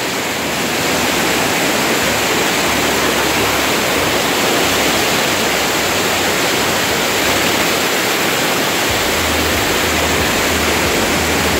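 Waterfall cascading over rocks close to the microphone: a loud, steady rush of white water.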